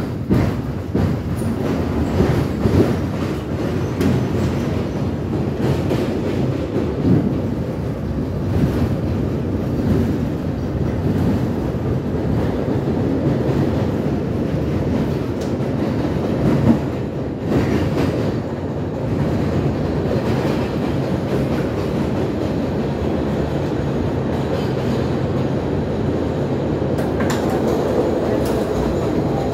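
NYC subway R62 car heard from inside as it rides the elevated line: a steady rumble of steel wheels on rail with sharp clicks over rail joints. The sound has just risen as the train picks up speed out of the station.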